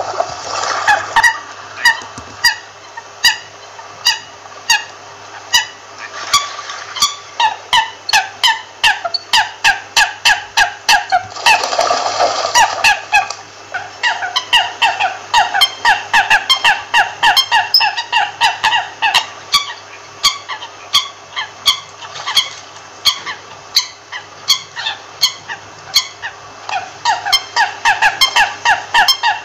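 American coots calling: a continuous, rapid string of short calls, about two or three a second, often overlapping. There is a louder, rushing burst about a second long near the middle.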